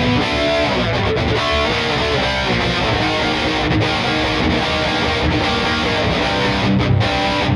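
Epiphone SG G-400 solid-body electric guitar played with a distorted amp tone, picked riffs and chords running without a break.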